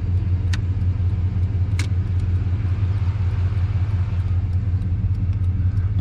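Vehicle engine idling steadily with a low, even hum, and two sharp clicks about half a second and about two seconds in.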